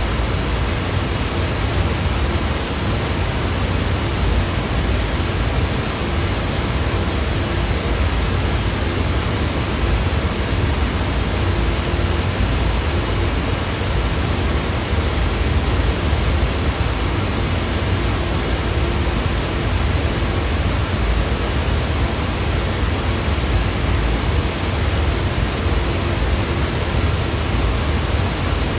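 Steady white-noise sound effect: an even, unchanging hiss spread across the whole range, heaviest in the low end.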